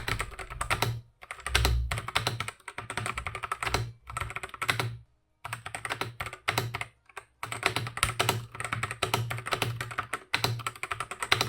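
Typing on a Kreo Hive 75% mechanical keyboard with Outemu Brown tactile switches: rapid runs of key clicks in bursts, with short pauses between them, the longest about five seconds in.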